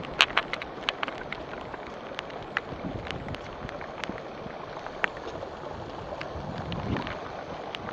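Rain pouring onto a flooded street: a steady hiss with many sharp drop impacts scattered through it.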